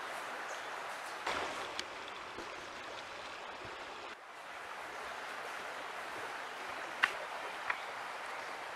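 Steady even hiss of outdoor background noise, broken by a few short sharp clicks: a small cluster about a second in and two near the end. The hiss dips for a moment about halfway.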